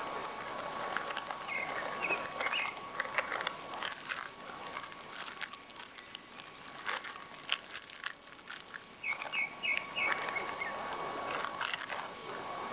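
Plastic wrap crinkling and rustling with small handling clicks as hands press and fold a bread-and-cheese sandwich on a wooden board. Birds chirp briefly about two seconds in and again about nine seconds in.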